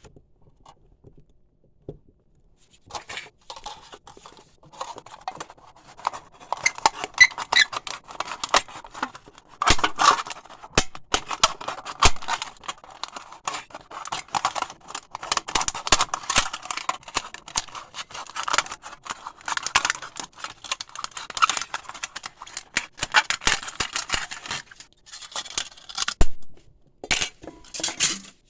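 Razor blade cutting and scraping through a thin aluminium pop can: a dense, rasping scratch full of small sharp clicks, starting about three seconds in and thinning out near the end.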